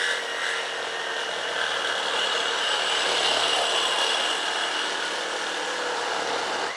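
Milwaukee M18 Fuel Super Sawzall reciprocating saw cutting through 2.5-inch galvanized steel pipe on regular, non-orbital stroke: a steady loud metal-cutting rasp with a high whine. It stops abruptly at the very end as the blade finishes the cut.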